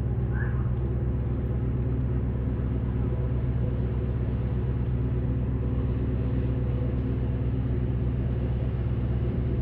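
Boat engine running at a steady speed, a constant low drone with no change in pitch.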